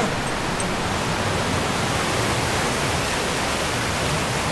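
Flowing stream water rushing steadily, a continuous even hiss.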